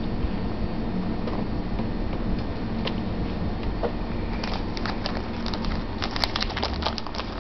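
Siamese cat eating a snack: a run of small clicks and crackles from about four and a half seconds in, over a steady low hum.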